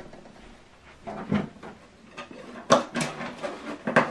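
Cables being handled and unplugged behind a TV and soundbar: a few scattered knocks, clicks and rustles, the loudest about three seconds in.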